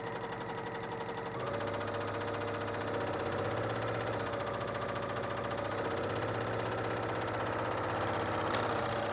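BERNINA L 890 serger (overlock machine) running steadily at speed, its needle and loopers beating out a fast, even rhythm as it sews a wide flatlock seam. The knife trims the fabric edge as it goes. It picks up slightly about a second and a half in.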